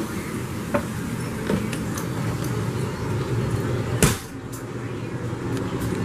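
Footsteps and knocks as someone climbs into a travel trailer and walks through it, the loudest thump about four seconds in, over a steady low hum.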